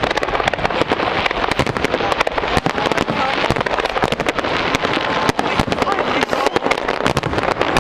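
Aerial fireworks display in a dense barrage, with shell bursts and bangs following one another in quick succession with no let-up.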